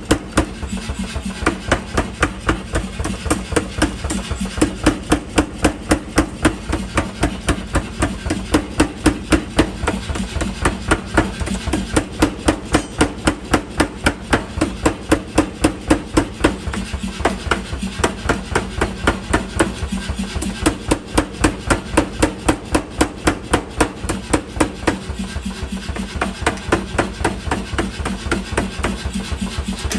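Hammer blows forging steel for a sickle blade, in a fast, even rhythm of about three strikes a second, over a steady low hum.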